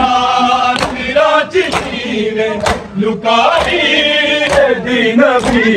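Men chanting a Punjabi noha together in a drawn-out, mournful melody, with the hard slaps of matam chest-beating landing in unison about once a second.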